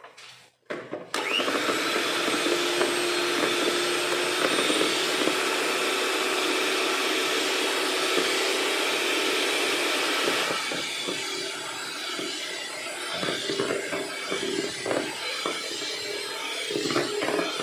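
Electric mixer switched on about a second in, running steadily as it beats eggs with powdered sugar for cake batter. About ten seconds in its sound turns quieter and uneven.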